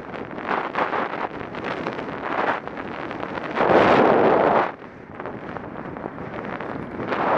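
Wind buffeting an action camera's microphone while riding along a road, a rough, fluttering rush that swells into a louder gust for about a second, roughly four seconds in.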